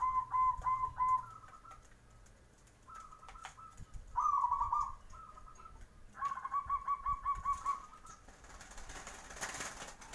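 Zebra dove (perkutut) cooing: several phrases of rapid, evenly spaced short coos, each lasting about a second or so, with shorter higher notes between them. A brief rustle near the end.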